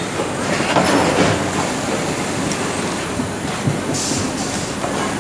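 Automated pneumatic box-folding machine running: steady mechanical clatter with a few knocks, and a short hiss about four seconds in.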